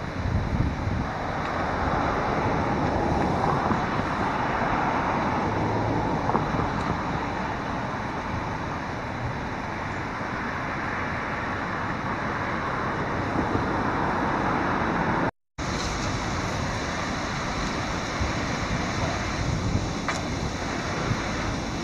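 Steady outdoor noise of wind on the microphone and rushing river water, with a low hum of road traffic. The sound drops out completely for a split second about fifteen seconds in, where the recording cuts.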